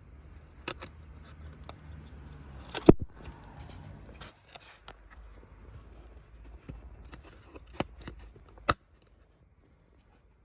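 A series of sharp clicks and knocks from hands-on work, the loudest about three seconds in, over a low steady hum that stops about four seconds in. The sound cuts out completely near the end.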